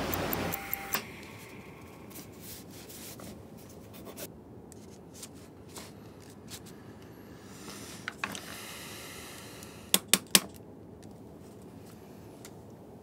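A pen scratching and rubbing on paper, with scattered small handling clicks. About ten seconds in come three sharp clicks in quick succession, the loudest sounds here.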